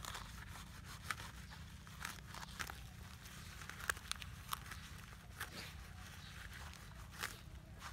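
A large kitchen knife cutting into an eel laid on leaves on the ground: irregular sharp taps of the blade striking through flesh into the leaves, about a dozen over several seconds.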